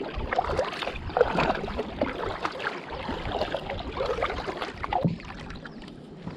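Kayak paddle strokes: the blades dipping into the water with irregular splashing and gurgling.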